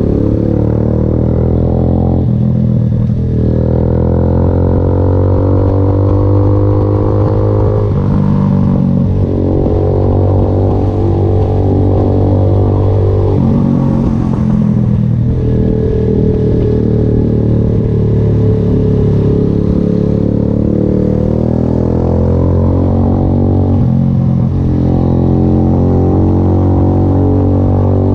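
VLR200 motorcycle engine running under way, its pitch climbing and then dropping sharply several times as the rider works the throttle and gears.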